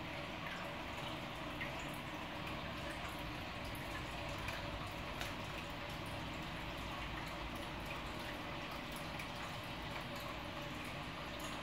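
Aquarium water trickling steadily, with faint drips and plinks scattered through.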